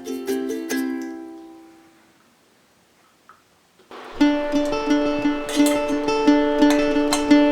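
Background music on plucked strings: the notes die away over the first two seconds, there is a short near-silent gap, and the music starts again about four seconds in.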